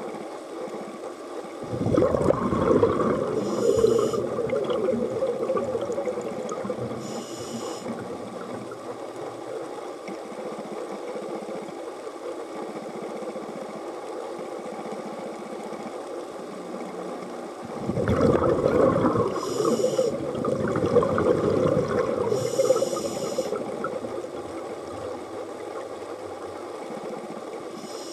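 Underwater scuba breathing: a diver's exhaled bubbles gurgle past the camera twice, each time for about four to five seconds, with short hisses from the regulator, over a steady underwater hiss.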